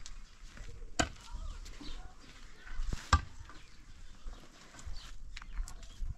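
Sharp knocks from building work on a wall: two loud strikes about two seconds apart, with smaller taps between them.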